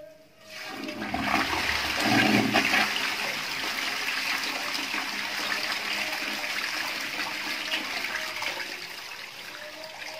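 Toilet flushing: a rush of water starts about a second in, is loudest over the next two seconds, then settles into a steady swirling rush as the bowl drains and refills, easing off a little near the end.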